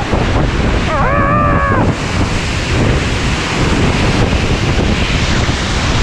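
Uchan-Su waterfall in full spate, its water pounding down in a dense, loud roar, with strong wind buffeting the microphone. A short vocal exclamation comes about a second in.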